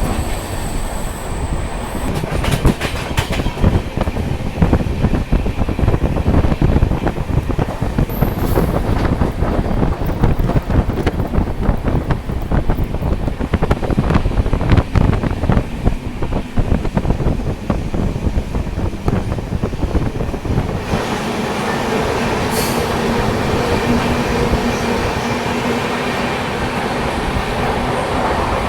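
Passenger train coaches running on the track, the wheels rumbling and clattering over the rail joints. About two-thirds of the way through, the clatter gives way to a steadier rushing noise with a faint hum.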